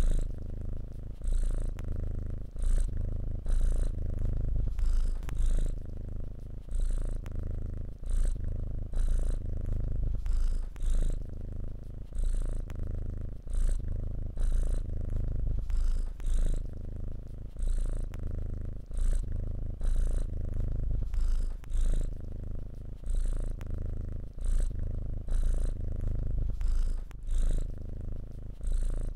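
Kitten purring while being stroked, a steady low purr that swells and eases with each breath, about once a second.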